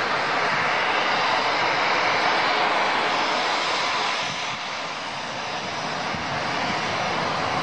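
Aircraft engines on a landing approach: a steady rushing roar with a faint hum underneath. It dips a little about halfway through, then builds again.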